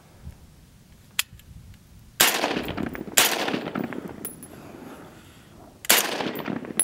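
Three gunshots, each trailing off in a long echo: a double tap of two shots about a second apart, then a third shot near the end that starts the next pair.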